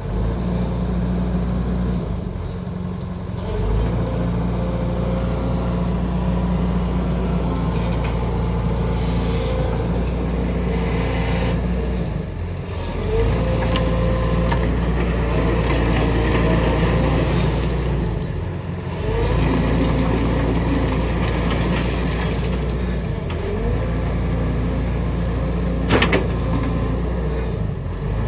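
Used hydraulic excavator's diesel engine running under changing load as it is worked, its level rising and easing every few seconds, with short rising hydraulic whines. A brief hiss comes about a third of the way in, and a sharp clank near the end.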